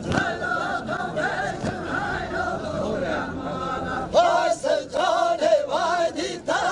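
Men's voices singing a Kurdish halay dance song together; the singing gets louder about four seconds in.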